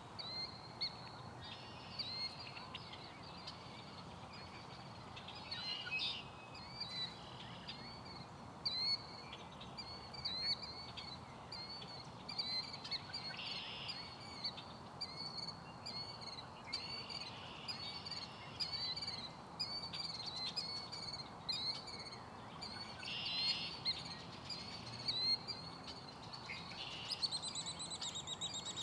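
Killdeer and red-winged blackbirds calling in a marsh. Short, high calls repeat throughout, broken every few seconds by a buzzy song of about a second, and a fast run of repeated notes comes near the end.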